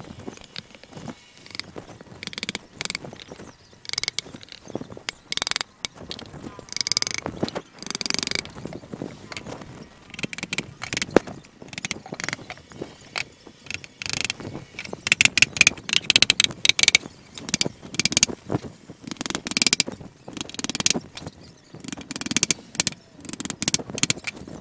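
Hammer driving nails into the plywood panels of a speaker box: runs of quick, sharp knocks with short pauses between, louder and more frequent in the second half.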